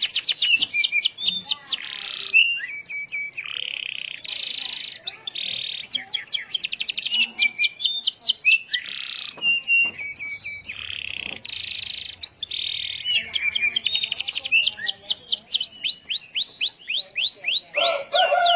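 Domestic canary singing a fast, unbroken song: rapid trills of quick downward-sweeping notes, about eight a second, alternating with buzzy rolls and short whistled notes.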